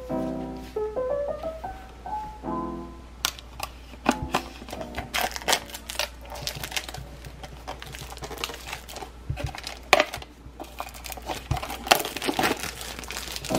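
Background music with a melody, then from about three seconds in, clear plastic wrapping crinkling and rustling in quick, irregular bursts as it is pulled off a small plastic container.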